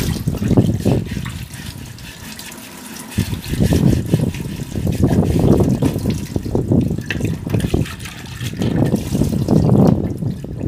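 Tap water running into and splashing off a clay pot as it is rinsed and rubbed by hand in a steel sink. The splashing drops off briefly about two seconds in, then picks up again.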